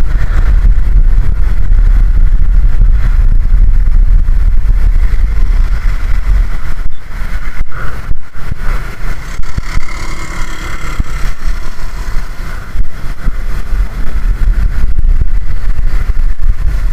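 Road vehicle on the move: a loud, steady low rumble of engine and road noise, which drops a little about seven seconds in.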